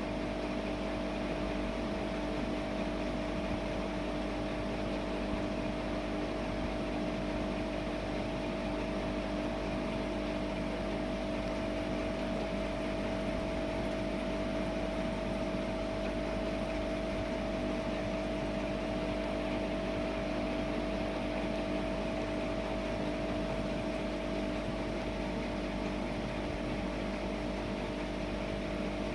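Aquarium pump humming steadily, with two held tones over an even hiss.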